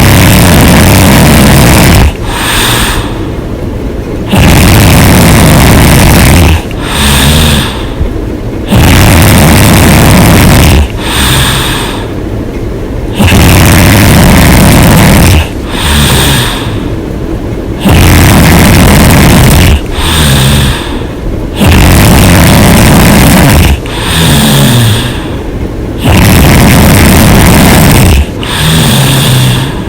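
A woman snoring loudly and open-mouthed in a steady rhythm: seven loud snores about four and a half seconds apart, each lasting about two seconds and loud enough to clip the recording, each followed by a shorter, softer breath.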